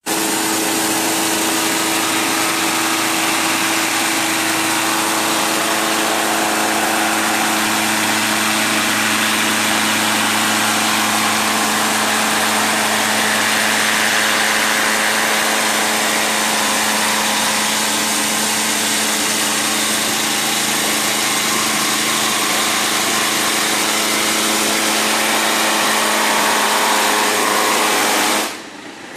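Electric concrete scarifier (CS300) running as its cutter drum chips an old epoxy coating off a concrete floor. It is a loud, steady machine noise with an even hum under dense rough noise, and it drops off suddenly near the end.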